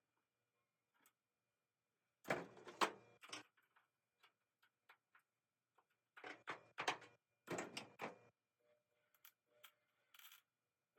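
Hard objects clattering as they are handled: two bursts of rattling clicks about a second long each, with scattered faint ticks between them.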